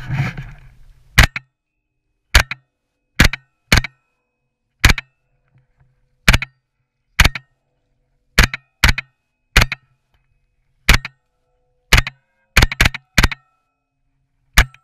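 Suppressed SIG MPX 9mm carbine with an Octane 9HD suppressor, fired semi-automatically: about sixteen single suppressed shots at an irregular pace, a few in quick pairs.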